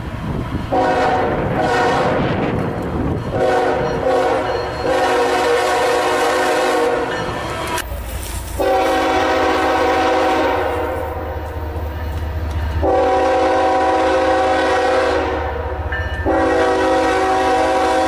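Diesel locomotive air horn sounding a series of blasts, several of them long, separated by short breaks. From about halfway in, a low rumble of the passing train runs beneath the horn.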